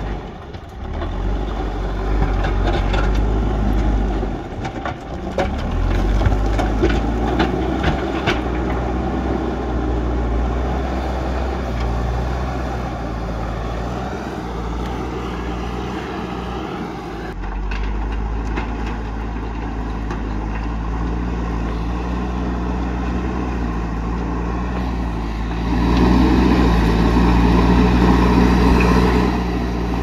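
JCB backhoe loader's diesel engine running under load as its front bucket pushes rocks and earth, with knocking and scraping of stone over the first several seconds. The engine grows louder for a few seconds near the end.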